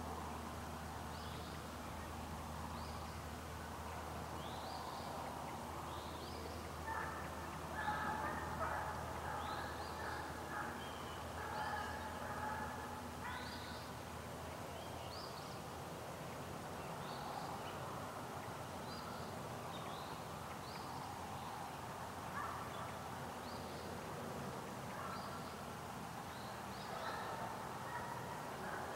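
A pack of deer hounds baying in the distance while running a deer, several voices overlapping, strongest about a quarter of the way in and again near the end. A small bird calls over and over with short rising chirps.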